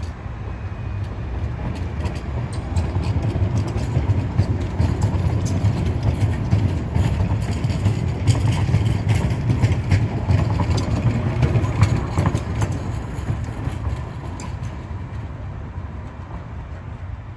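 Alstom Citadis Dualis electric tram-train passing close by: a low rumble from its wheels and running gear on the rails, with scattered clicks, building to its loudest as it goes past and then fading away.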